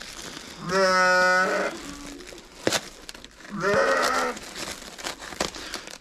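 Sheep bleating twice, the first call steady and the second wavering, with a single sharp click between them.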